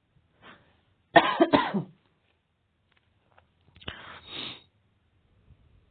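A person coughs about a second in, then makes a quieter throat sound about three seconds later.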